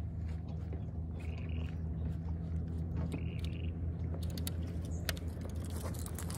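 Baitcasting reel being cranked on a lure retrieve: short whirs and small clicks over a steady low hum.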